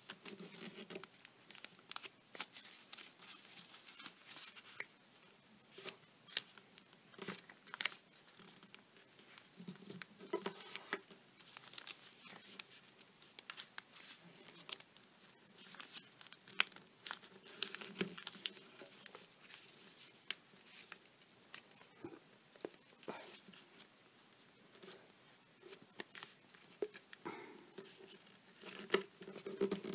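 A sheet of origami paper being folded and creased by hand: irregular rustling with short, crisp crackles as fingers press the creases flat. This is the pre-creasing of the square base.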